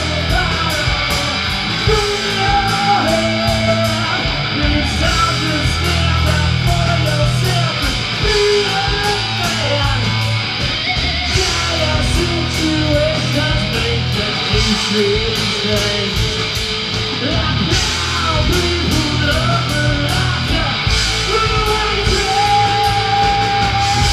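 Heavy rock band playing live through a club PA: distorted electric guitar, bass guitar and a drum kit with steady cymbal hits, loud and unbroken, heard from within the crowd.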